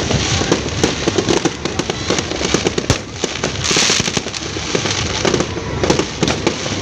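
New Year fireworks display: a dense, continuous barrage of bangs and pops, with a brief hiss about four seconds in.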